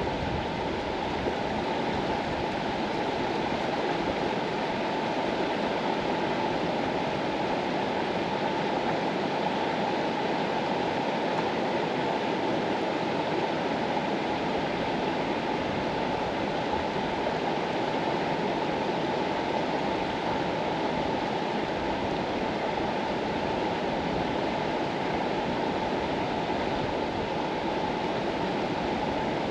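Mastallone river flowing: a steady, unbroken rush of running water.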